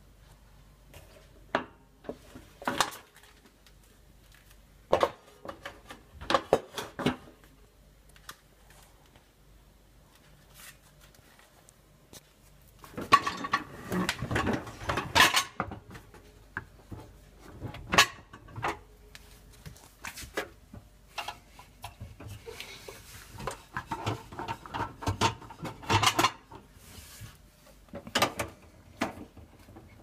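Crockery, pots and pans clinking and knocking against each other and the wire racks of a fully loaded dishwasher as the load is handled. Scattered single knocks, with a longer spell of dense clattering around the middle and another later on.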